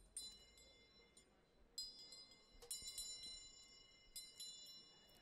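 Quiet, sparse metallic chime strikes, about four of them, each ringing out and slowly fading. They are the runway's sparse ambient music.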